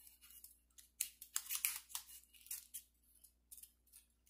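Paper strips rustling and scratching as they are handled and slid into place between an AR rifle's upper and lower receivers: a string of short, scratchy rustles starting about a second in.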